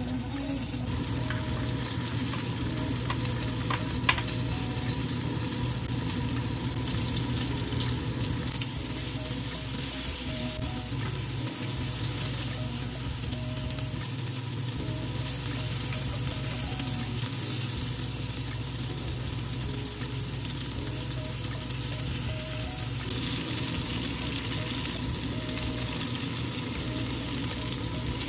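Flour-dredged chicken pieces sizzling steadily as they shallow-fry in hot oil in a nonstick pan, with a sharp click about four seconds in.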